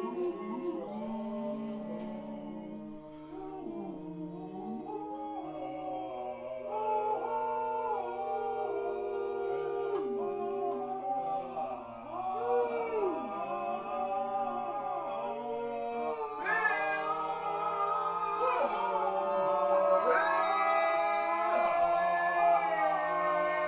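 Wordless group vocals from a free jazz quartet: several voices hold overlapping long notes and slide slowly up and down in pitch, growing louder and fuller about two-thirds of the way through.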